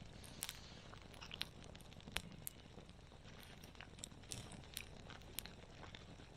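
Wood campfire crackling softly, with scattered sharp pops at irregular intervals.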